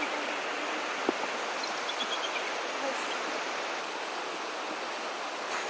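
Steady rushing of a river far below, with a few faint high bird chirps about two seconds in and a single click about a second in.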